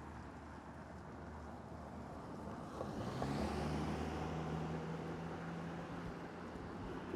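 City street ambience: a steady wash of sewer water running, with a car passing by from about three seconds in, its engine hum and tyre hiss swelling and then fading.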